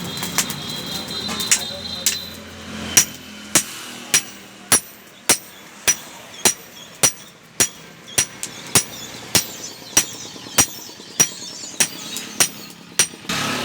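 Blacksmith's hammer striking metal on an anvil in a steady rhythm, a little under two blows a second, each blow with a short metallic ring. The blows start about three seconds in.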